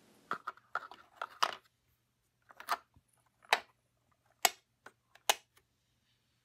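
Small wooden doors of an advent-calendar cabin being pushed shut, with a toy figure set into its compartment: a run of light taps and clicks, then four sharper wooden clicks about a second apart.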